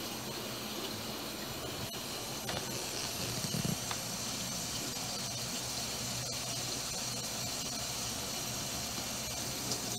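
Water running steadily from a kitchen faucet into a stainless steel sink, a makeup brush being swirled in a glass dish under the stream.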